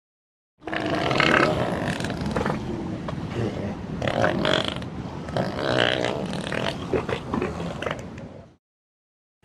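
An animal's rough, noisy calls in an unbroken string lasting about eight seconds, then stopping.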